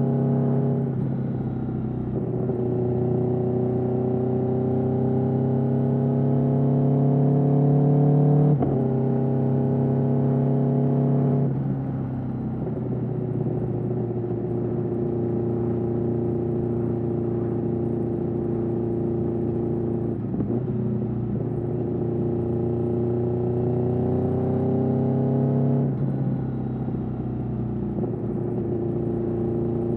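2021 Aprilia Tuono V4's 65-degree V4 engine running through an Austin Racing GP1R exhaust under light throttle. The note climbs slowly, then drops sharply in pitch about a second in, again near twelve seconds, and near twenty-six seconds, with a brief dip in between.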